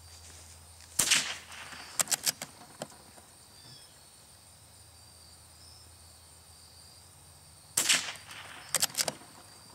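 Marlin Model 25 bolt-action .22 LR rifle fired twice, several seconds apart, with Wolf Match Extra rimfire ammunition. Each sharp crack is followed about a second later by a quick run of metallic clicks as the bolt is worked to eject the case and chamber the next round.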